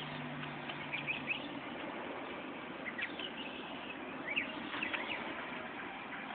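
Small birds chirping now and then over a steady outdoor background, short high chirps a few times. A low steady hum in the first second or two fades out.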